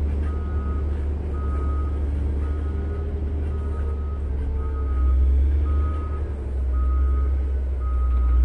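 Caterpillar 140M motor grader reversing, its backup alarm beeping about once a second over the diesel engine's low running. The engine grows louder about halfway through.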